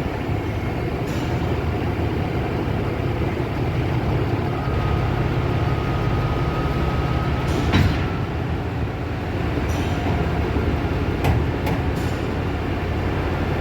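Engine of a Sri Lanka Railways S8 class diesel multiple unit running with a steady low rumble, broken by several sharp metallic clanks. A thin high tone holds for a few seconds in the middle.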